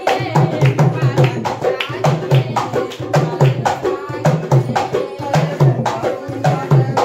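Dholak hand drum played in a quick, steady rhythm of deep strokes, about three a second, with a singing voice over it, accompanying a dance.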